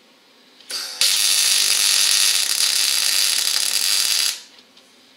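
MIG welder laying a tack weld on a new steel front outrigger. A brief sputter about two-thirds of a second in, then the arc crackles steadily for about three seconds and cuts off abruptly.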